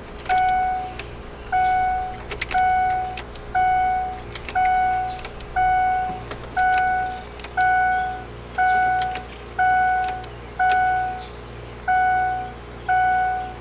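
A Ford Expedition's dashboard warning chime repeats steadily, one clear tone about once a second, with faint clicks in between. The ignition key is in the on position. No fuel pump prime hum is heard under the chime, which is a sign in this crank-no-start that the pump may not be priming.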